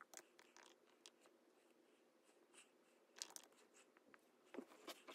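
Faint keystrokes and trackpad taps on a MacBook laptop: scattered soft clicks, with a small cluster about three seconds in and another just before the end.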